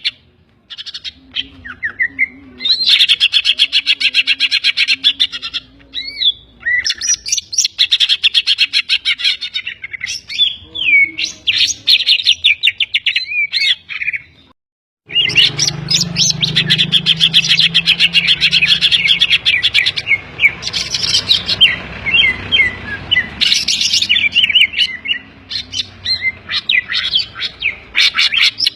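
Cucak ijo (green leafbird) singing loudly in fast, dense trills and rapid chattering phrases, a song filled with imitated calls of other birds. It pauses briefly several times and breaks off completely for about half a second around the middle.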